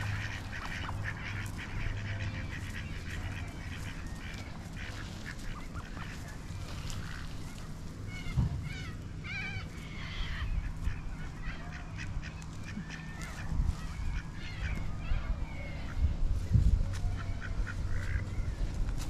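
A flock of mallard-type ducks quacking and calling in short bursts, busiest around the middle and later part, over a low steady hum.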